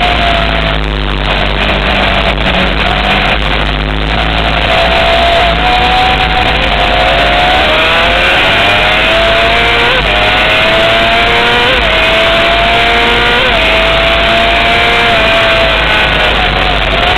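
Honda CBR600 sport bike's inline-four engine running hard at track speed, heard onboard over loud wind rush. The engine pitch falls in the first few seconds, then climbs again in steps through the gears.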